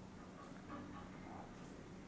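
Quiet room tone with a faint steady low hum; no distinct sound event.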